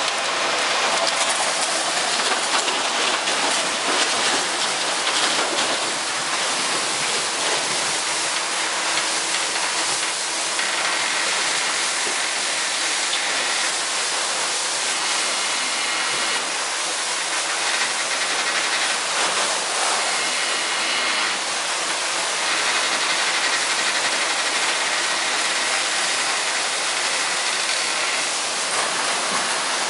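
Wood chips pouring from an overhead chute into a chip truck trailer, making a steady, even hissing rush. A faint high whine comes and goes from about a third of the way in.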